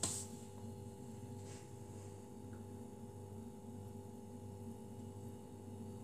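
Samsung front-loading washing machine running mid-cycle with a steady low hum made of several fixed tones, and a single click right at the start.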